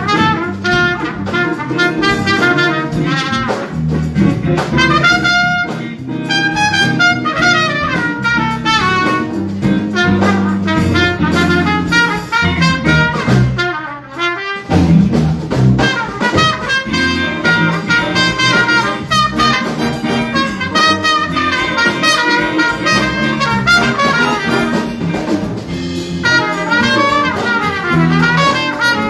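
High school jazz ensemble playing live: a big-band tune with brass and saxophones over a drum kit, with a brief drop-out about halfway through.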